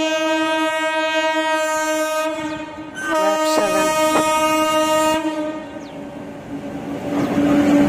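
Electric locomotive's multi-tone air horn sounding two long blasts as the train approaches, followed by the rising rumble of the train on the rails as it draws near.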